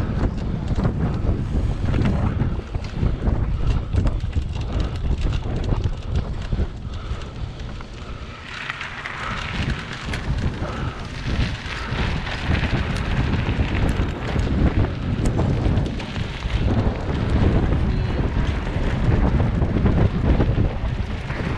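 Wind buffeting the microphone of an action camera on a moving cyclocross bike, over a constant low rumble and jolts from riding fast on a rough dirt track. About a third of the way in, a brighter hissing swells up for a few seconds.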